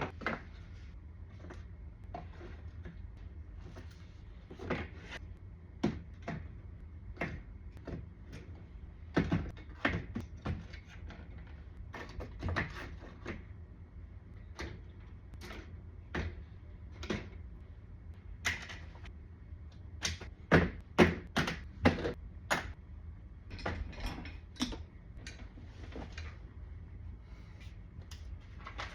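Irregular sharp clicks and snaps from hands working the plastic parts of a Real Grade Hi-ν Gundam model kit, over a steady low hum.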